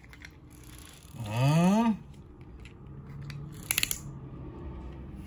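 A short rising-then-falling voice sound, like a hummed engine noise, a little over a second in, then a faint whir and a quick run of about four small clicks from a toy pull-back car being wound back by hand on a mat.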